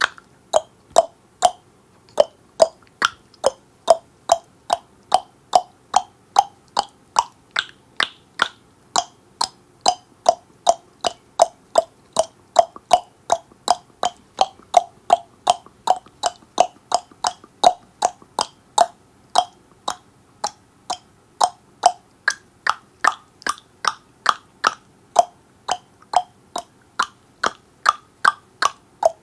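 A steady run of tongue clicks, about two a second, each a sharp hollow pop. About three-quarters of the way through, the clicks turn higher-pitched.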